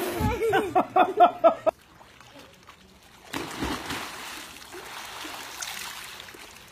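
A quick run of short, high cries, then a sudden cut. About three seconds in, water starts splashing and sloshing in a swimming pool as swimmers dive and kick underwater.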